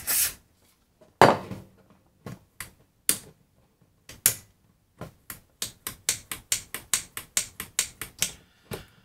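A few short hisses of spray contact cleaner into the radio's volume-control potentiometer, then the control's shaft worked back and forth, its built-in center switch clicking rapidly at about five clicks a second from about halfway through. The shaft is turned to spread the cleaner over the pot's worn track and switch contacts.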